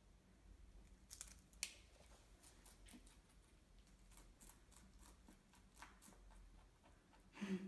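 Pet rabbit chewing lettuce and chopped vegetables: faint, irregular crisp crunches. A brief louder low sound comes near the end.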